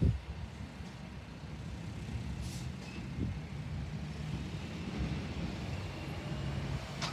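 Diesel garbage trucks running with a steady low rumble, with a short air-brake hiss about two and a half seconds in.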